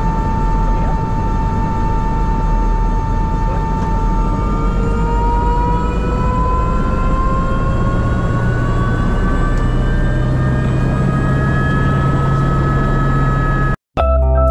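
Airbus AS350B3e helicopter's Arriel 2D turboshaft engine running during start-up, heard from the cockpit: a steady turbine whine over a low rumble, rising slowly in pitch from about four seconds in as the engine speeds up. Near the end the sound cuts off suddenly and electronic music begins.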